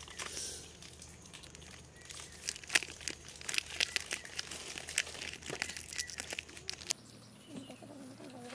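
A KitKat bar's wrapper being torn and peeled open by hand: a run of sharp, irregular crinkles and crackles, the loudest about three seconds in.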